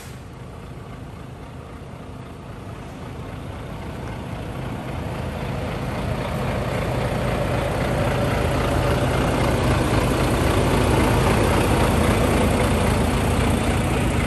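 Volvo semi tractor's diesel engine running at idle, a steady hum. It grows steadily louder over about the first eight seconds, then holds level.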